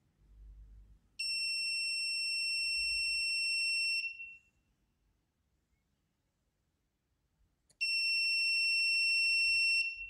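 Electronic buzzer of an ESP32 and MQ-4 gas alarm sounding a steady high-pitched tone twice: once for about three seconds, starting a second in, and again for about two seconds near the end. It is triggered by the MQ-4 sensor detecting gas released from a lighter held at the sensor.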